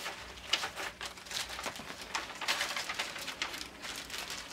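Packaging rustling and crinkling in a run of quick, irregular crackles as items are handled in and out of a box of pet toys.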